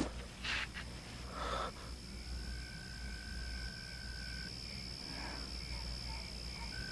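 Faint night ambience of frogs and insects calling, with a steady high trill throughout and a lower steady call that stops partway and returns near the end.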